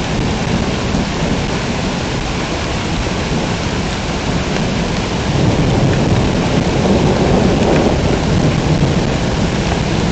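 Heavy rain pouring steadily, with a low rumble of thunder swelling up a little past halfway and fading again near the end.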